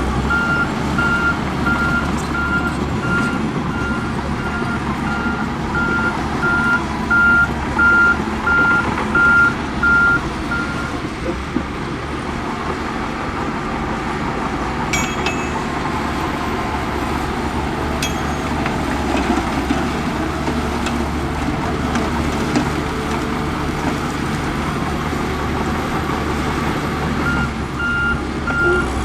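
Heavy diesel construction machinery running steadily, with a reversing alarm beeping at an even pace that stops about a third of the way through and starts again near the end.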